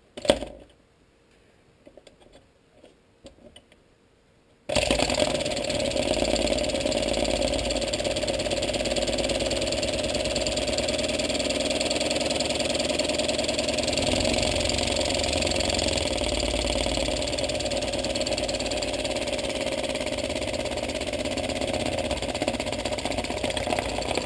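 LEGO pneumatic single-cylinder engine running on compressed air from a blow gun: it starts about five seconds in and runs fast and steady with a rapid rhythmic clatter over a loud hiss of air, then stops suddenly at the end. Before it starts there is a knock and a few light clicks as the flywheel is handled.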